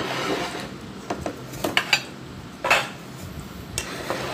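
Plates and dishes clinking and knocking on a tabletop during a meal eaten by hand: about half a dozen sharp, separate clinks, the strongest around two and a half seconds in.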